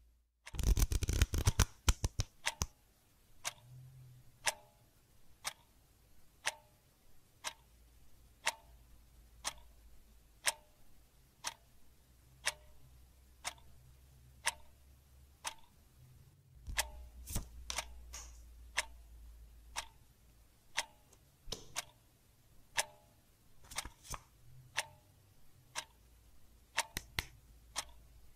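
A clock ticking steadily, about once a second, with a rapid flurry of clicks about a second in and a faint low hum underneath.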